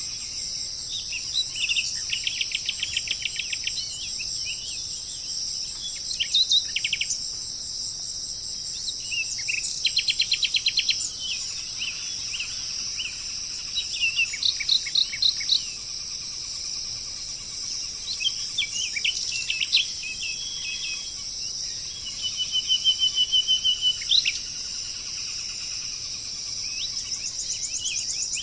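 A songbird singing short phrases of rapid notes and trills, one phrase every few seconds, over a steady high-pitched insect buzz.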